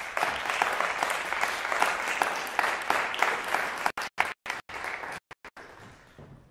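Applause from a small audience, many hands clapping at once, thinning out and fading near the end.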